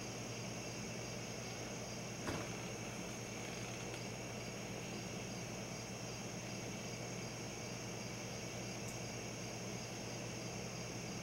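Steady night insect chorus over constant hiss and a low hum, with one short click about two seconds in.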